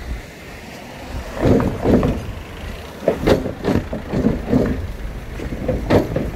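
Cars driving over the wooden plank decking of a disused railway level crossing, the boards clunking and clattering under the wheels several times over the low noise of the cars going by. The clatter comes from the worn timber boards between the rails.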